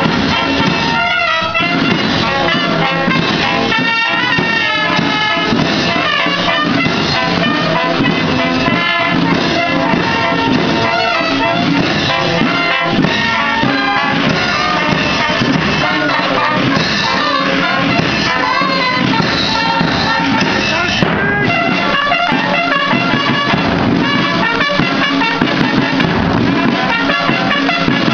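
Military brass band playing live, trumpets and other brass carrying the tune without a break.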